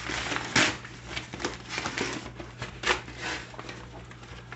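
Rustling of a plastic mailer bag and a cardboard shoe box scraping against it as the box is worked out, in irregular rubs with two louder scrapes, about half a second and about three seconds in. A faint steady low hum runs underneath.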